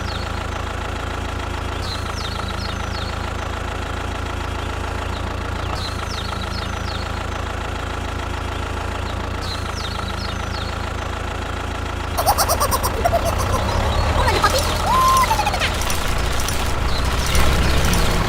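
Engine running steadily at idle, a low even rumble. About twelve seconds in it gets louder, with clattering and a brief whine that rises and falls.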